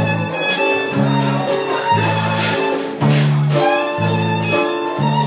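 Live band music: a violin plays a bowed, held melody over electric bass and drums, the bass notes changing about once a second.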